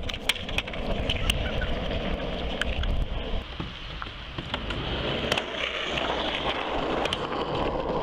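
Skateboard wheels rolling over concrete and ramps in a steady rumble, with a number of sharp clacks as the board hits the ground and ramp surfaces.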